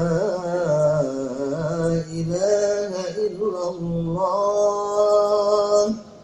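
A man's voice chanting a long, ornamented Islamic chant, its held notes wavering and sliding in pitch; the chant stops about six seconds in.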